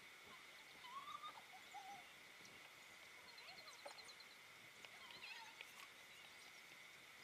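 Faint birdsong: scattered short chirps and warbling whistles, including a quick run of ticks midway, over a steady high-pitched hum.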